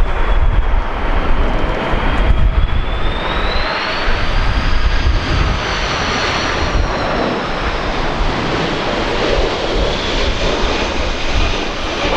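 Jet airliner on landing approach passing overhead: a steady engine rumble with a high fan whine that rises in pitch partway through and then falls away, with gusts of strong wind on the microphone.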